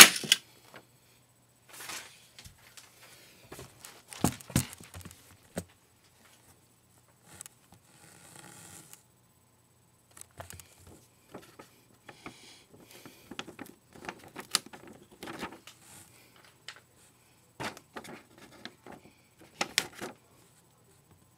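A single sharp snap from a rubber-band-powered LEGO crossbow. It is followed by scattered plastic clicks, knocks and rustling as the toy and camera are handled, with a cluster of louder knocks about four seconds in.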